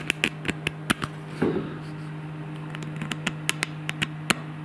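Irregular sharp clicks of a steel screw tip tapping and scratching along the scored cast-iron guideway of a surface grinder's table, over a steady low hum.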